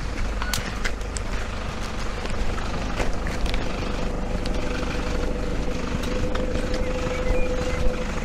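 A distant engine drone with a steady hum that grows louder through the second half, over a constant low rumble and scattered light ticks.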